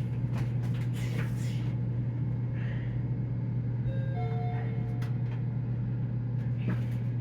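Mitsubishi elevator's electronic arrival chime: a brief tone about four seconds in, then a two-note tone lasting about half a second, over a steady low hum.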